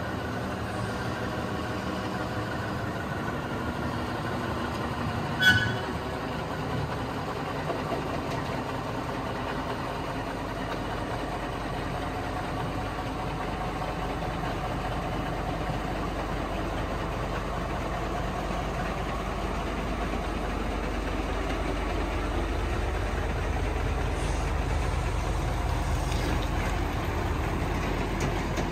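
Heavy truck engine idling and running at low revs, growing louder in the second half. A short high-pitched tone sounds once about five seconds in.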